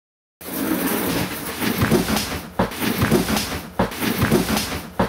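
A run of knocks, clatters and thumps with rustling that starts suddenly about half a second in, consistent with a person tumbling and scrambling about after a fall.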